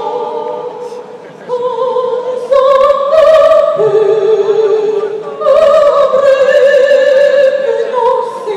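Operatic singing in a large arena: a voice sings a slow melody of long held notes with vibrato, growing louder a couple of seconds in.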